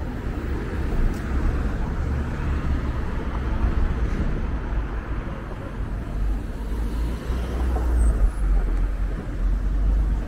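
Road traffic on a city street: cars and a lorry passing close by, a continuous low rumble under a steady wash of traffic noise.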